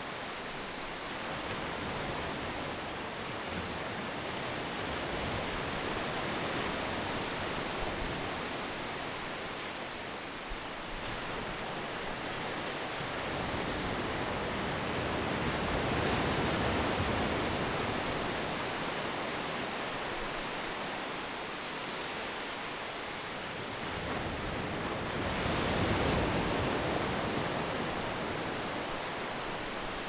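Sea surf breaking on a sandy beach: a steady wash of noise that swells as waves break, loudest about halfway through and again a few seconds before the end.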